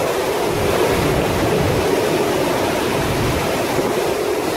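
Torrential rain pouring down in a violent windstorm, a steady loud rush of rain and wind.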